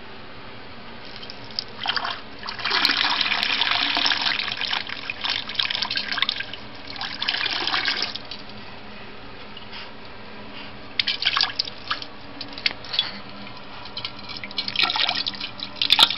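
Toilet flushing: water rushes and splashes into the bowl from about two seconds in, easing off after about eight seconds. Shorter bursts of swirling and splashing return near the end.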